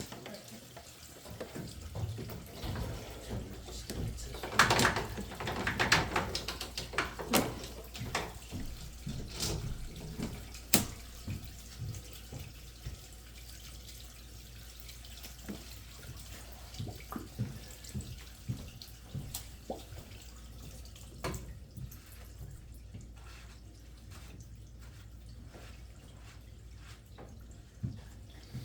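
Water running from a faucet left on to send water down the sewer line during a scope inspection, with scattered knocks and clatter that are busiest in the first ten seconds and sparse after about twenty.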